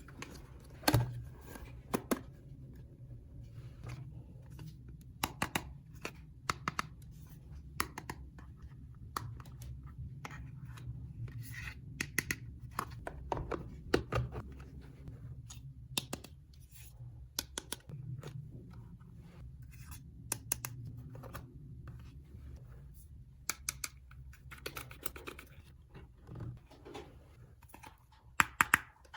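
Hands handling plastic dollhouse toy parts and their packaging: irregular clicks, taps and scratching, over a steady low hum.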